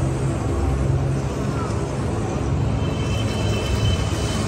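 Steady street noise, mostly the low rumble of road traffic, with no distinct event standing out.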